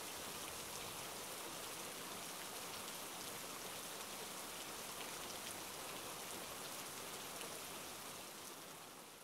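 Steady rain falling: an even hiss with faint ticks of single drops, fading out near the end.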